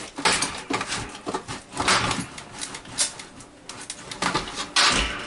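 An old window's sash track being knocked and pried with a screwdriver: irregular knocks, clanks and scrapes, with a heavier thump near the end as the sash works free.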